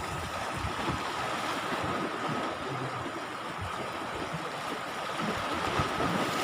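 Steady seaside noise of surf washing on the shore, with wind on the microphone and a faint steady whine.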